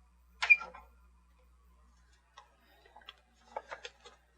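Hard plastic action-figure parts of a Masters of the Universe Stridor toy clicking and tapping as they are handled and fitted together. There is one sharper knock about half a second in, then a scatter of small clicks over the last two seconds.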